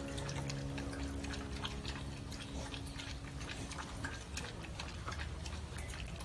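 Beagle lapping bone broth from a stainless steel bowl: a quick, irregular run of small wet clicks. The last chord of background music fades out over the first few seconds.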